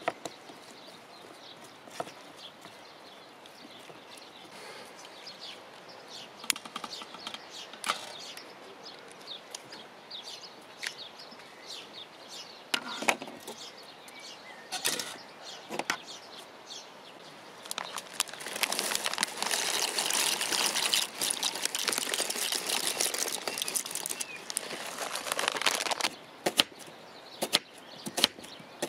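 Camp cooking sounds: scattered clicks and scrapes of a utensil in a plastic bowl, then a loud, steady rushing hiss lasting about seven seconds. Near the end a knife chops an onion on a plastic cutting board in quick taps.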